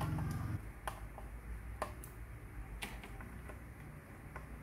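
Small screwdriver working screws out of a plastic RC truck chassis: scattered light clicks and ticks of metal on screw heads and plastic, about half a dozen spread unevenly. A low hum stops about half a second in.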